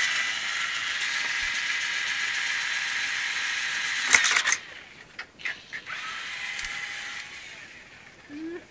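A small motor running with a steady high whine and hiss, stopping about four and a half seconds in with a clatter of sharp clicks. A few scattered clicks follow, then a shorter second run of the same whine.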